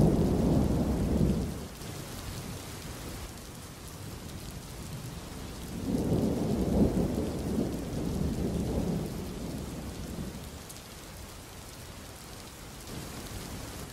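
Thunderstorm: steady rain hissing, with rolling thunder. One rumble fades out about a second and a half in, and a second rumble swells up about six seconds in and dies away by about ten seconds.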